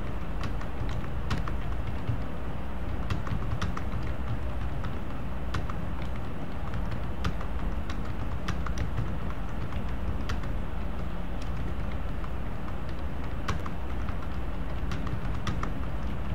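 Typing on a computer keyboard: irregular key clicks, a few a second with short pauses, over a steady low rumble.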